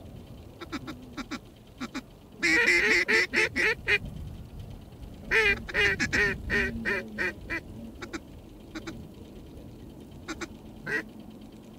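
Duck call blown to bring in a duck working the decoys. A loud run of rapid quacks starts about two and a half seconds in, a second run follows from about five to seven and a half seconds, and short single quacks fall in between.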